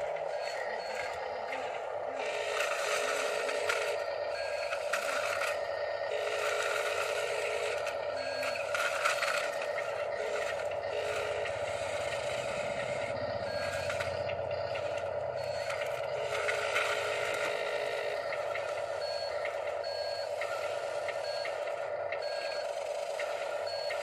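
Radio-controlled Huina model construction machines working gravel: a steady electric motor whine with pebbles scraping and clattering over it, and short high beeps that repeat at intervals.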